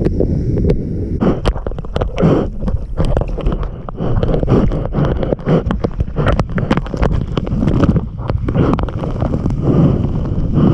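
Water rushing and splashing as a mid-length surfboard rides through a breaking wave. A continuous crackle of spray hits a board-mounted camera, over a low rumble of wind on the microphone.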